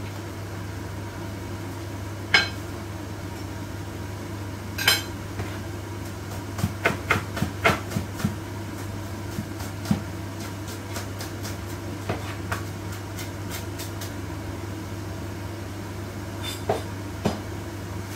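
Pork steaks and onion rings simmering in sauce in a frying pan, with scattered sharp pops and crackles of spattering over a steady low hum.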